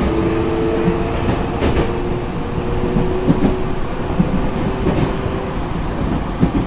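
Nankai 6000 series electric commuter train running, heard from inside the car: a steady rumble and hum, with the wheels clicking over rail joints at irregular intervals.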